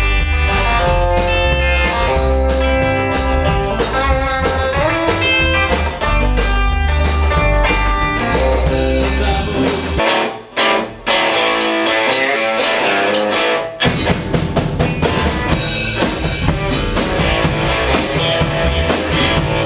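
Rock band playing an instrumental break: a lead guitar line with held, bending notes over bass and drums. The bass and drums drop out for about four seconds around the middle, leaving the guitar, then come back in together.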